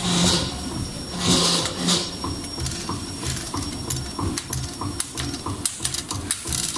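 CNC wire bending machine feeding and bending flat steel strip in small steps: its motors run in a steady rhythm of short pulses, about two or three a second. There are three short hisses in the first two seconds.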